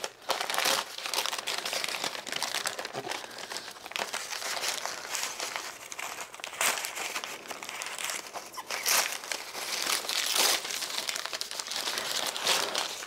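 Brown packing paper crinkling and rustling as it is pulled off a plant by hand, a steady crackle with louder crinkles every second or two.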